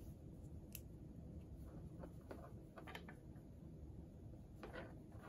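Faint rustling and a few soft clicks from flannel fabric being handled and folded by hand, over a low steady room hum.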